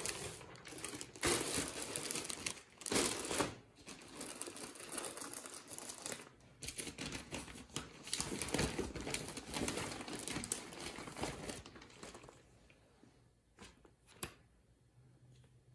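Irregular crinkling and rustling of handled packaging, dying down to a few faint clicks near the end.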